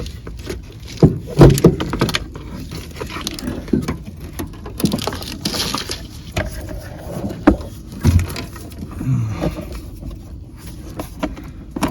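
Irregular knocks, clunks and rustling of parts being handled and set in place inside a car, with the loudest knocks about a second in and again near the eighth second.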